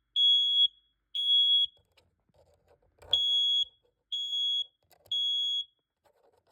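Smoke alarm sounding in alarm after canned test smoke: loud high-pitched beeps of about half a second each, in the three-beep temporal pattern, three beeps a second apart and then a pause.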